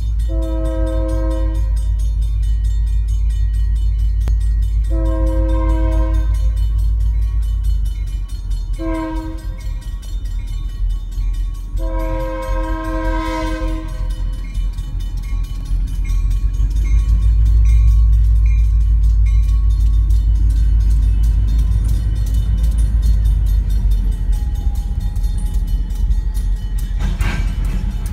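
Diesel freight locomotive sounding its horn in the grade-crossing pattern of long, long, short, long, over a heavy low rumble from the engine and the rolling train. A bell dings about twice a second for a few seconds midway through, and a brief sharp metallic noise comes near the end as the gondola cars roll through the crossing.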